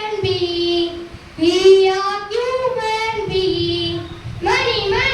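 A child singing unaccompanied, high, held notes in short melodic phrases, a new phrase beginning about a second and a half in and another near the end.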